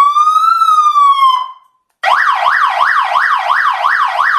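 Conventional emergency-vehicle siren. First a wail: one tone rising, then falling, and cutting off about a second and a half in. After a short pause comes a fast yelp, sweeping up and down about three times a second.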